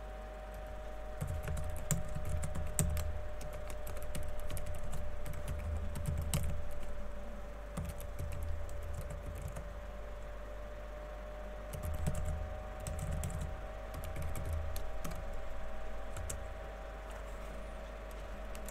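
Typing on a computer keyboard: quick irregular keystrokes in two long runs with a pause of a few seconds between them.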